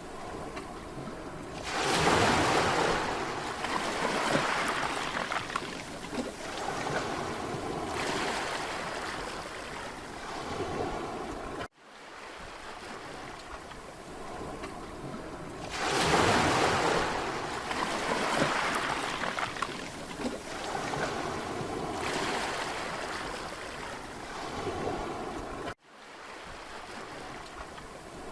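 Mediterranean sea waves breaking and washing up a beach. Two waves surge in loudly about 14 seconds apart, each hissing back out over several seconds. The sound cuts out abruptly for an instant twice, as at the joins of a loop.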